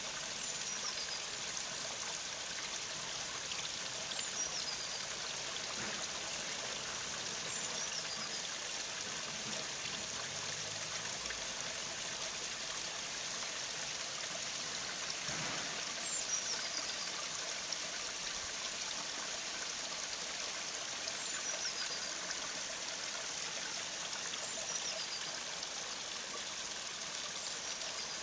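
Small garden stream trickling over low stone cascades: a steady, even rush of running water. A faint high chirp, falling in pitch, comes every few seconds.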